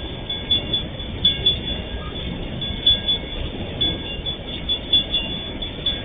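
Freight train of MRS gondola wagons rolling past: a steady rumble of wheels on rail with irregular knocks a few times a second and brief, high-pitched metallic tones that come and go.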